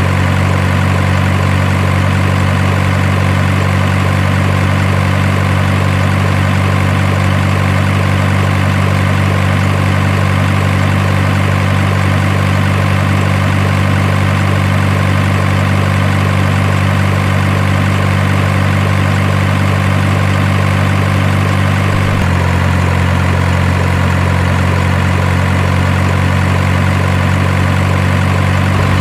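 Steady diesel truck engine idling sound, unchanging in level, with a slight shift in its tone about 22 seconds in.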